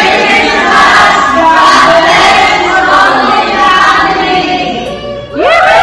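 A large mixed group of adults and children singing together. About five seconds in the singing drops away briefly, then the voices slide up together into a loud group shout.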